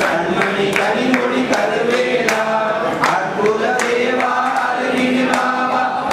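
A group of men singing a devotional chant together, with sharp percussive strikes scattered through it.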